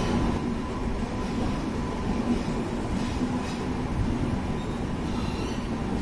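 Passenger train coach rolling slowly out of a station, heard from its open doorway: a steady rumble of wheels and running gear on the rails.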